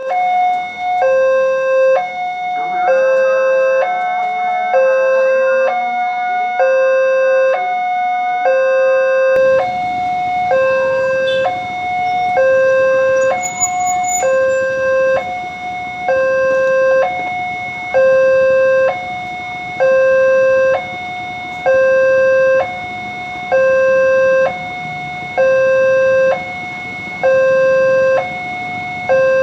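Indonesian railroad level crossing warning alarm sounding a loud electronic two-tone signal, alternating evenly between a lower and a higher pitch, warning that a train is approaching. About nine seconds in, a steady rumbling noise rises underneath it.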